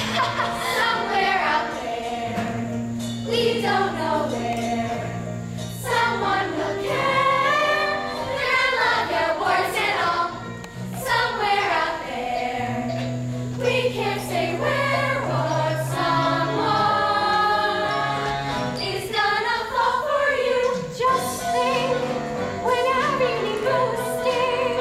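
Stage-musical music: a chorus of voices singing over an accompaniment with long held bass notes.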